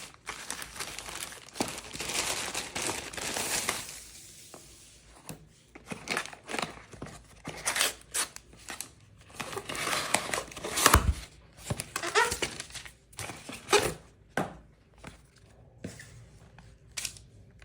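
Packaging being torn open and crinkled by hand: about four seconds of steady rustling, then irregular crackles and clicks with one louder knock about eleven seconds in.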